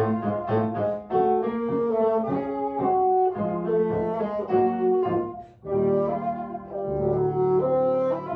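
Instrumental music led by brass, with a melody of held notes over lower sustained notes. It breaks off briefly a little past halfway, then resumes.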